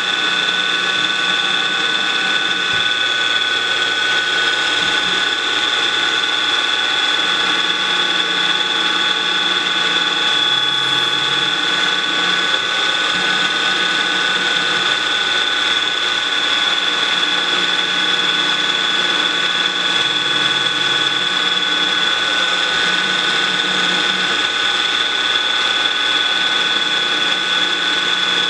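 Milling machine spindle running with an end mill cutting UHMW plastic: a steady high whine made of several constant tones over a noisy cutting sound, with lower hums that come and go.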